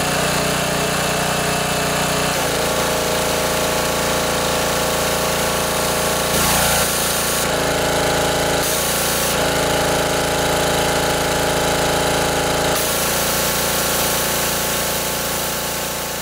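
Subaru EA190V single-cylinder engine on a pressure washer running steadily, its note shifting several times as the pump is loaded and unloaded. A hiss of the water jet comes in at intervals, from about six seconds in and steadily over the last few seconds.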